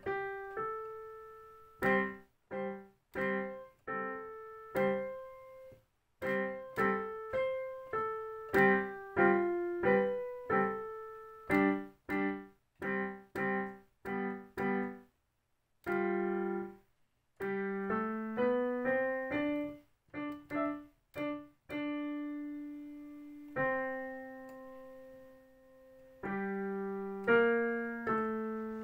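Digital piano played by hand: phrases of single notes and chords, each note struck and dying away, with short pauses about six and sixteen seconds in and two long held chords in the last third.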